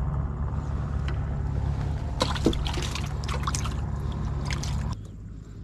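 Water trickling around a small wooden boat, with light knocks and clicks over a steady low rumble; the rumble drops away abruptly about five seconds in.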